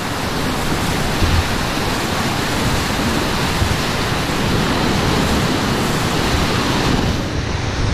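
Steady rush of whitewater rapids heard from a small raft running through them, with a couple of brief low thumps of water against the boat.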